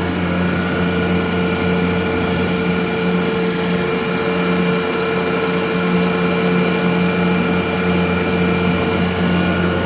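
Gardner Denver Electra Screw (EBE99K) rotary screw air compressor running with a steady, quiet hum and no irregular noises. Its pitch and level stay constant, with several steady tones over a low drone, while the unit builds pressure.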